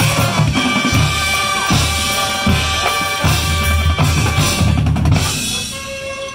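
Marching band playing: bass drums and snare drum beat a driving rhythm under held chords, and the music grows quieter about five seconds in.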